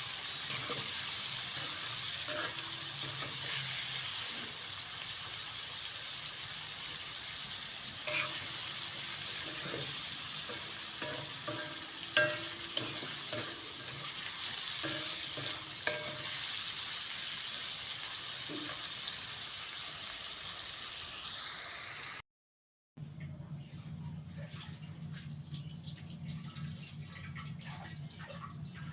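Tofu and green chilies sizzling in a frying pan as they are stir-fried, a spatula clicking against the pan now and then. About 22 s in the sizzle cuts off abruptly, and a quieter stretch follows with a low hum and a few light clinks.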